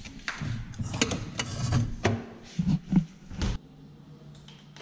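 Refrigerator door opened and a plastic water bottle taken out and handled: a quick run of clicks, rattles and knocks, with two heavier thumps just before three seconds in. About three and a half seconds in, this gives way to a quieter, steady low hum.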